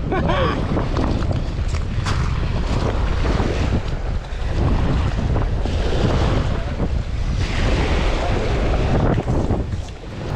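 Heavy wind buffeting the microphone, with sea water washing and lapping.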